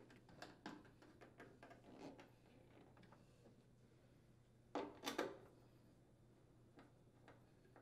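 Faint clicks and light metal taps from a hand screwdriver seating in and turning the screws of a dryer door hinge, with a short cluster of louder clicks about five seconds in.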